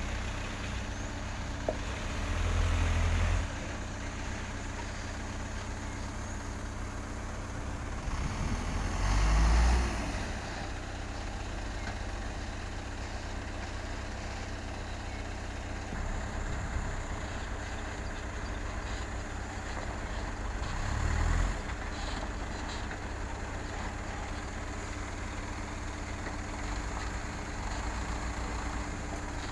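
Heavy diesel construction machinery engine running steadily, revving up under load three times, the strongest about a third of the way in.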